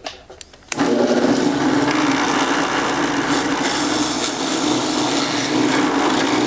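Power drill boring a hole in wood for a threaded insert nut. The drill starts with a click and runs steadily under load from under a second in, its motor hum under the noise of the wood being cut.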